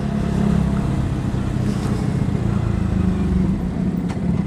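Yamaha R15 V3's 155 cc single-cylinder engine running steadily as the motorcycle rides slowly, heard from on the bike.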